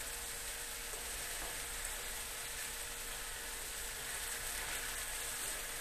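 Pink salmon head pieces sizzling steadily in hot oil in a pan as they fry.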